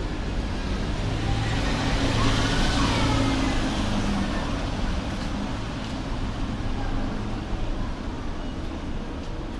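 Street traffic: a motor vehicle passes, swelling to its loudest about two to three seconds in and then fading, over a steady low hum.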